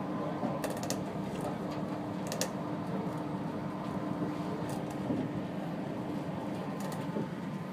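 Cabin running noise of a Chiba Urban Monorail suspended car in motion: a steady hum with a steady tone that fades out about halfway, and a few faint ticks and rattles.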